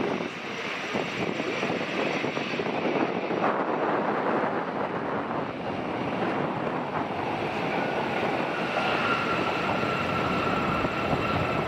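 Jet aircraft engines running, a steady rushing roar with a thin whine joining in at about eight seconds.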